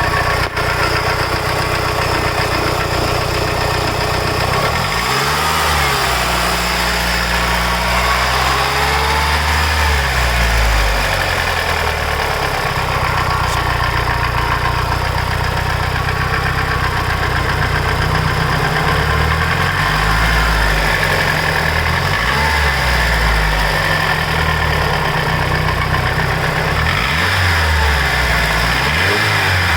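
Mitsubishi Lancer Evolution VIII's 4G63 turbo four-cylinder engine idling steadily with a lifter tick that persists after a complete head rebuild with new lifters.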